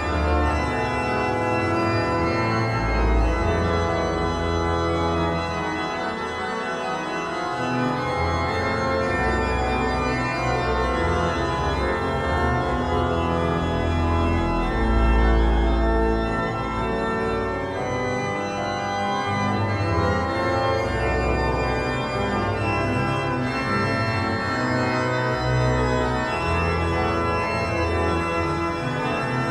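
Church pipe organ playing sustained chords over deep bass notes that change every second or two.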